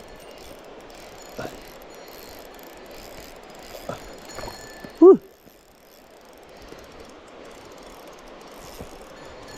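Spinning reel being cranked as a hooked fish is reeled in, over the steady rush of stream water. A short pitched cry about five seconds in is the loudest sound.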